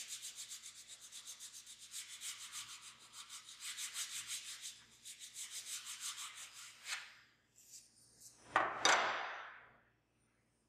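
Fine-tooth hand file lightly draw filing a small steel part: quick, even scraping strokes, about four a second, stopping about seven seconds in. About a second later comes one louder, longer scrape.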